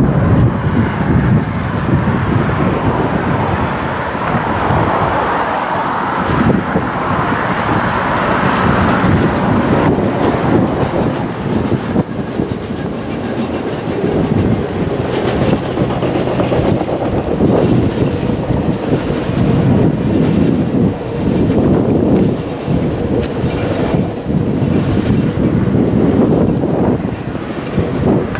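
Passing diesel passenger train: the vintage EMD FP9A and F9B cab-unit locomotives run by, then a string of heritage passenger cars, their wheels clacking over the rail joints, with the clacking taking over from about a third of the way in.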